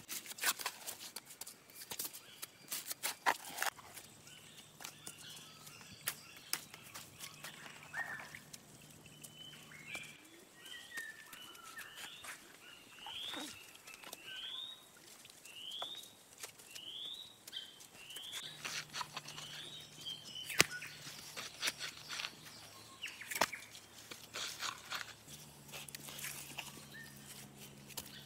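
Knocks and scrapes of a shovel and hands handling wet clay clods. In the middle a bird repeats a short rising call about nine times, a little under one a second.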